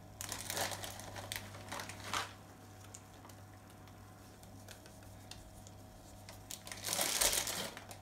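Packet of sliced almonds crinkling as it is handled, in two spells: one in the first two seconds and a louder one around seven seconds in, with a few small ticks between.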